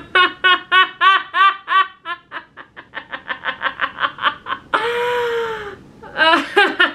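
A woman laughing hard in a long run of rhythmic 'ha' pulses that speed up midway. About five seconds in comes one long, drawn-out voiced sound, then a few more bursts of laughter.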